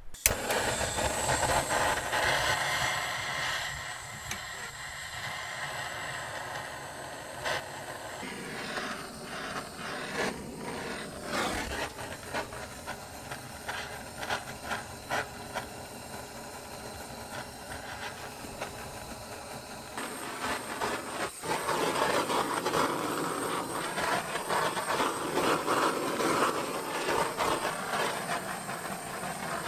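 Handheld butane torch lit with a click, then burning with a steady hiss as it is held to a small wood stove to start the fire. The middle stretch is quieter, with scattered clicks and knocks. The hiss grows louder again near the end.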